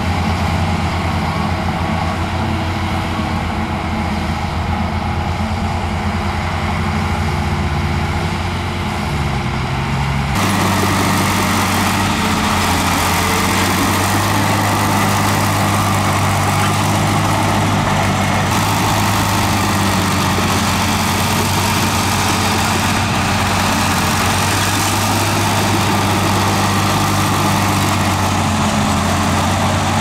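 Heavy earthmoving machine's diesel engine running steadily. About ten seconds in, the sound changes abruptly to a brighter, slightly louder running.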